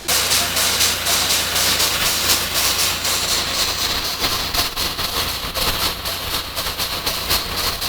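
Drill rig running while drilling: a loud steady hiss with rapid rattling knocks, starting suddenly.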